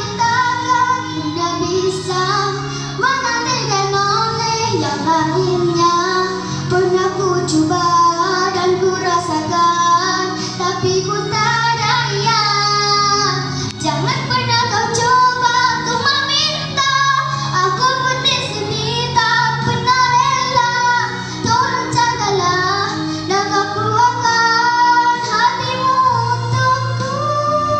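A singer performing a slow Malay pop ballad over instrumental accompaniment, holding long, bending notes throughout.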